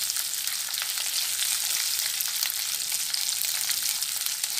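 Chopped onion, garlic and green chilli sizzling in hot oil over a high flame: a steady hiss with frequent crackles. A wooden spatula stirs and scrapes them around the pan.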